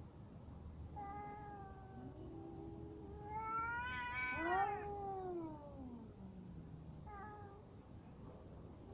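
Domestic cats caterwauling at each other in a fight standoff: long, wavering yowls rising and falling in pitch. Two voices overlap at the loudest point, about four seconds in, and a short yowl follows near the end.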